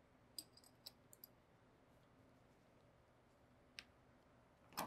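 Faint clicks of a wrench on the clevis screw as it is torqued: a quick run of small clicks in the first second and a half, a single click near four seconds and a louder one just before the end.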